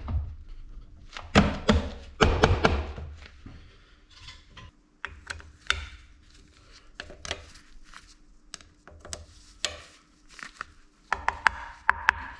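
Metal gear cover of a drill press head being fitted and seated: two heavy knocks within the first three seconds, then scattered lighter taps and clinks, and a quick run of sharp clicks near the end.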